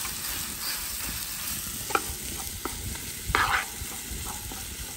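Pork chorizo frying in a pan, sizzling steadily, while a utensil stirs it with a few clicks and scrapes against the pan. The loudest scrape comes about three and a half seconds in.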